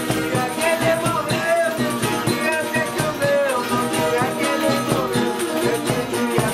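Live acoustic dance music: voices singing a melody over strummed guitars, with a steady beat.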